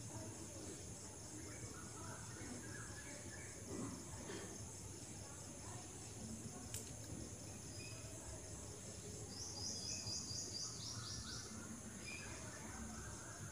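Faint insect chorus: steady high-pitched chirping in the background, with a short run of quicker, evenly spaced chirps about ten seconds in.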